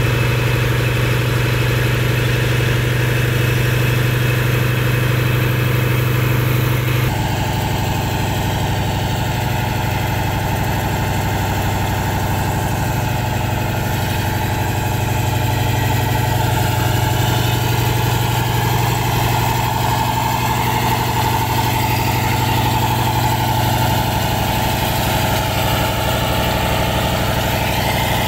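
The engine on a sand-dredging pontoon runs steadily, driving the sand suction pump. Its tone shifts abruptly about seven seconds in, then holds steady again.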